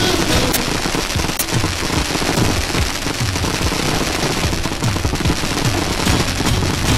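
Fireworks going off in a dense, rapid barrage of bangs and crackles, close-packed like machine-gun fire and steady in loudness throughout.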